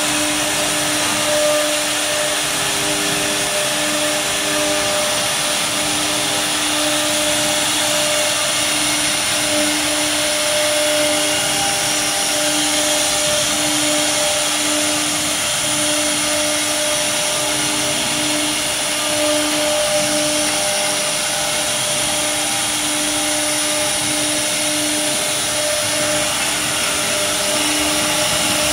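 Wood CNC router spindles running during a test run: a steady motor whine and hiss, with a hum that keeps breaking off and coming back.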